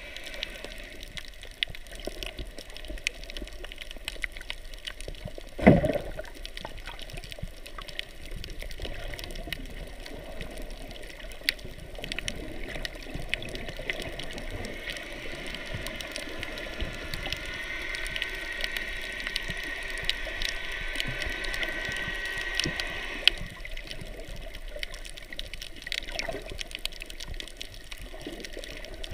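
Underwater sound heard through a submerged camera: a muffled wash of moving water with scattered small clicks and crackles. A louder whoosh of water about six seconds in.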